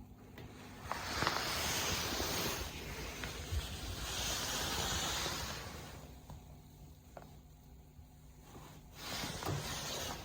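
Mother cat hissing angrily at her kittens: three long hisses, the first about a second in, the last near the end.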